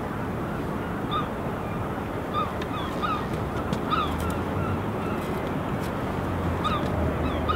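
Birds calling repeatedly with short, sharp calls, irregularly about once a second, over a steady background rush.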